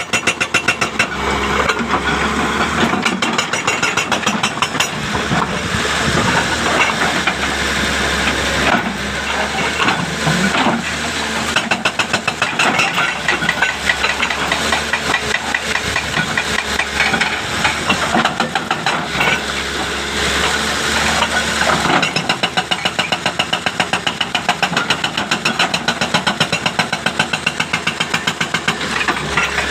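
Hydraulic breaker on a Hitachi machine hammering rapidly and continuously, with the machine's engine running underneath.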